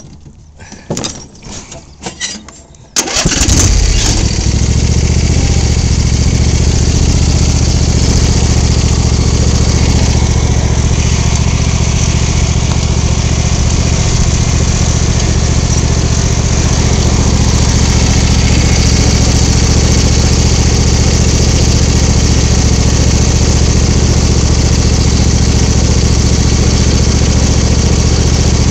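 A few clicks and knocks, then a small John Deere tractor's engine starts about three seconds in and runs steadily.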